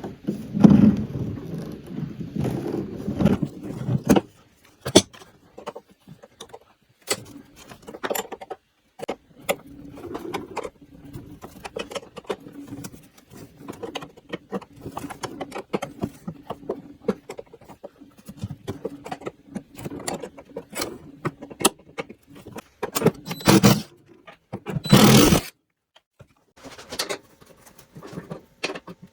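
Clinks, taps and rattles of tools and metal parts as screws are taken out and the door is worked off an old drink fridge, with two short, louder bursts of noise about 23 and 25 seconds in.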